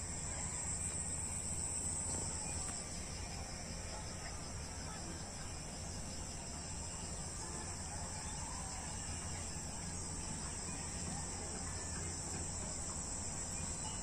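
A steady, high-pitched chorus of insects such as crickets chirring over a low steady rumble.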